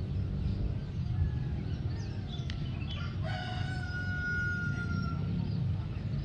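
A rooster crowing once, about three seconds in: a single drawn-out call of about two seconds that drops slightly at its end, over a steady low rumble.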